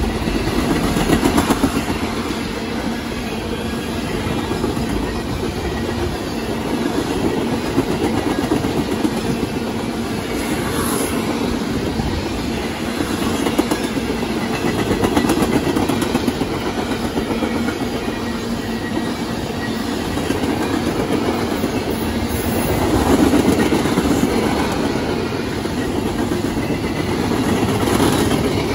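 Freight train of tank cars and refrigerated boxcars rolling past close by: steel wheels on rail making a steady rolling rattle, with a continual clicking of wheels over rail joints.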